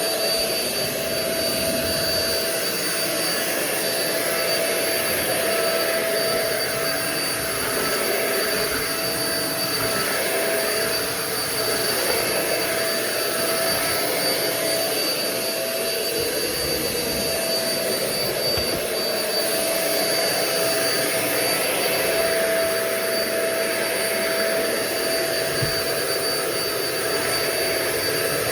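Euro-Pro Shark EP600 bagless stick vacuum running steadily: rushing air under a steady high motor whine, with the airflow tone shifting slightly as it works over the floor.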